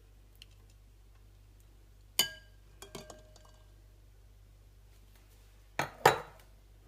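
Kitchenware clinking as boiled eggs are lifted out and put into a bowl of cold water: one ringing clink about two seconds in, a few light ticks soon after, then two sharper knocks near the end.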